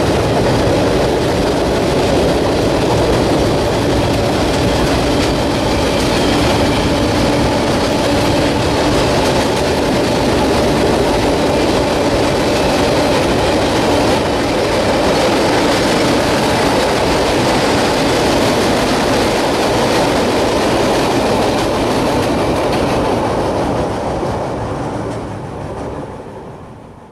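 Freight cars (tank cars, then hoppers and boxcars) rolling across a steel girder bridge, a steady loud clatter and rumble of wheels on rail and steel spans. It fades out over the last few seconds.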